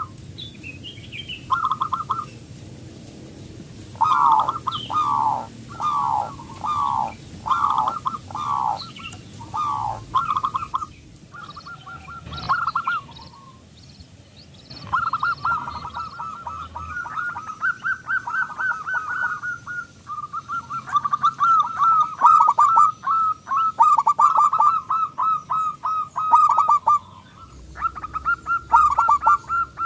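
Male zebra dove (perkutut) cooing in repeated rhythmic phrases. Separate notes fall in pitch during the first part, and a long fast rolling run of notes comes in the second half.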